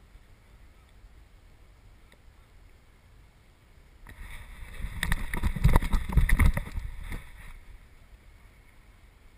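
Rustling, scraping and thumping of a camera mounted on a golden retriever as the dog moves. It starts about four seconds in, is loudest around the middle, and dies away after a few seconds.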